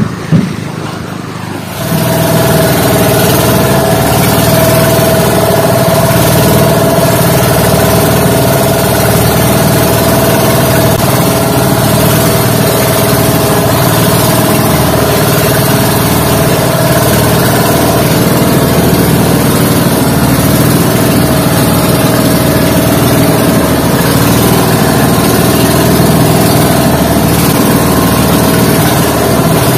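Bangka (outrigger boat) engine running steadily under way, heard from on board: a loud, even drone with a strong steady whine. It starts abruptly about two seconds in, after a quieter moment.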